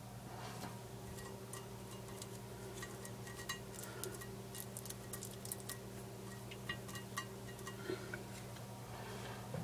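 Faint steady electrical hum with small ticks and clicks scattered irregularly through it.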